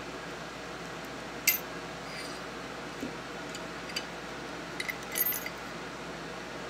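Small metallic clicks and clinks of a steel tool against the steel parts inside a Remington Model 12 .22 pump-action rifle's receiver as the cartridge retainer is worked into place. A sharp click about one and a half seconds in is the loudest, followed by two lighter ticks and a short cluster of clinks near the end, over a steady hiss.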